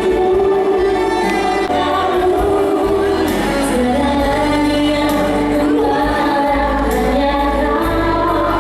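Live music with singing: voices hold long melodic notes over a steady band accompaniment.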